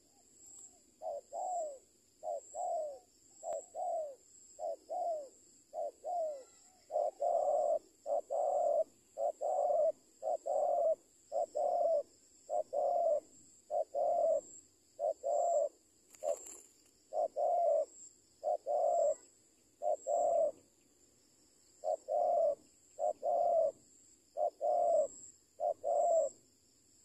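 Spotted dove cooing over and over, mostly in quick pairs of low, rolling notes about once a second, with a short pause near the two-thirds mark. Insects buzz steadily and high-pitched behind it.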